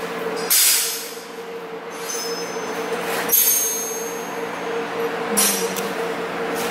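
Steady machine hum in a workshop, holding a constant tone, broken by three short bursts of hiss: about half a second in, a little after three seconds, and a little after five seconds.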